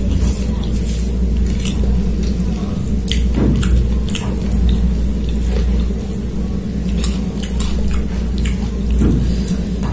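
Fingers mixing and squeezing rice with chicken curry on a plate, making soft wet squishing and clicking sounds, along with chewing, over a steady low hum.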